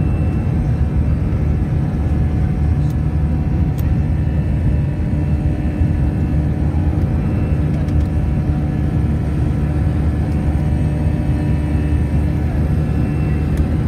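Jet airliner's turbofan engines heard from inside the passenger cabin during the climb after takeoff: a steady rumble with faint steady hums above it.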